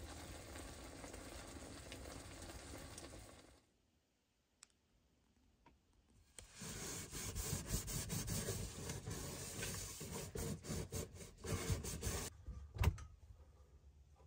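Food sizzling steadily in a frying pan for a few seconds, then a pause. After that comes a sponge scrubbing a frying pan at the kitchen sink, an uneven rubbing with small clatters, ending in a few light knocks as the pan is handled.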